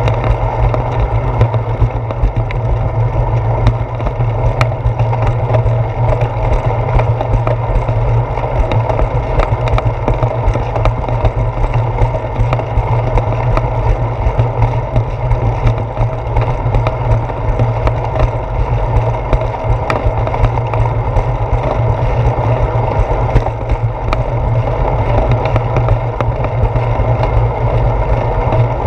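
Wind rushing over a handlebar-mounted GoPro camera and bicycle tyres rolling on a concrete sidewalk: a steady deep rumble with many small knocks and rattles as the bike rides over bumps and joints in the pavement.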